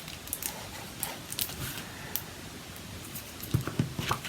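Light taps, clicks and paper rustles of card stock and craft supplies being handled on a desk, with a few sharper knocks near the end.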